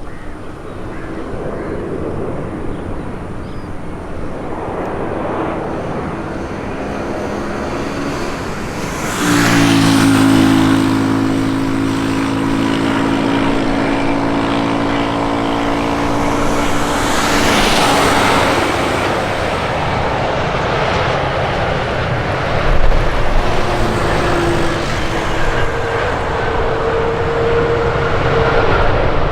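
Engine noise of traffic and jet aircraft. About a third of the way in it gets louder: a steady humming engine note holds for several seconds between two whooshes, then the noise settles back to a steady rumble.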